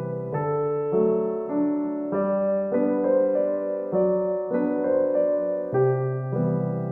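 Soft background piano music: gentle chords changing about every half second.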